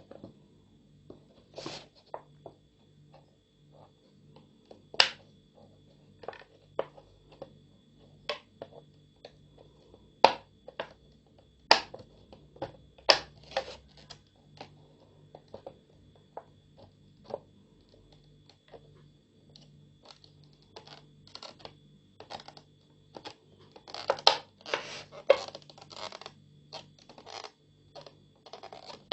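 A thin plastic Pepsi bottle making irregular clicks and crackles as a hot soldering-iron tip is pressed into it again and again to melt fish-scale marks. The clicks come closer together near the end.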